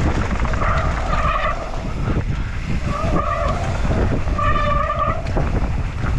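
Mountain bike running fast down a dirt trail: wind buffeting the microphone and the tyres rumbling and clattering over rough ground. Three short squeals from the disc brakes come about a second, three seconds and four and a half seconds in.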